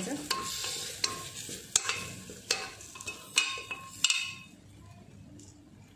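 A spoon stirring small stuffed brinjals through frying masala and oil in a pressure cooker, knocking against the pot about once a second over a light sizzle; the stirring stops about four seconds in, leaving a faint sizzle.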